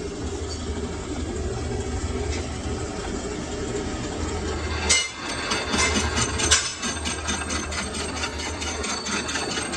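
Lathe running with a steady low hum that briefly drops out about five seconds in, with a few sharp metallic clicks around then.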